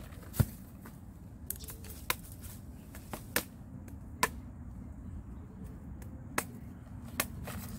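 Half a dozen or so sharp clicks and snaps at irregular intervals, the loudest about half a second in, over a low steady rumble.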